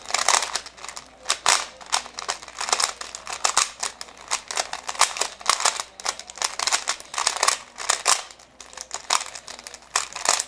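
A 3x3 Rubik's-type speedcube being turned rapidly by hand during a timed solve: fast plastic clicking and clacking of the layers in quick flurries with short pauses between them.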